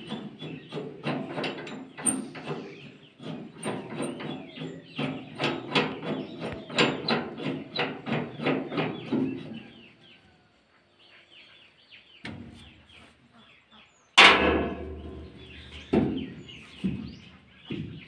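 Irregular metal knocks and rattles from the Surya thresher's sheet-metal feed hopper being handled. They ease off about ten seconds in, and a loud clatter comes about fourteen seconds in.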